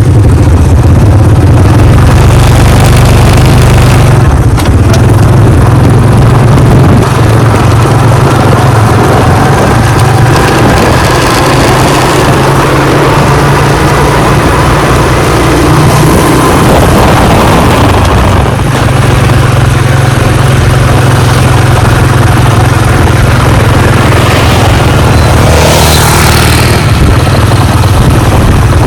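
Vehicle on the move: a loud, steady low rumble of engine and road noise, with a brief rising and falling swish near the end.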